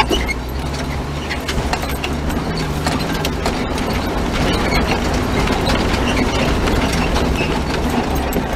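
Jeep driving slowly along a rough dirt trail, heard from inside the cab: a steady low engine hum with constant small rattles and knocks from the bumpy ground.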